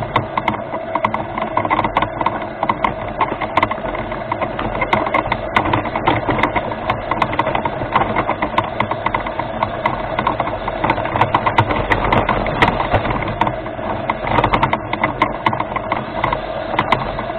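Remote-controlled rover's drive motors and gears whining steadily as it drives, with constant irregular clicking and rattling from the chassis.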